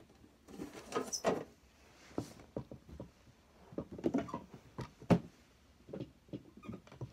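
Clear acrylic football display cases being handled, set down and picked up: scattered clicks, taps and knocks with rustling between them, the sharpest knock about five seconds in.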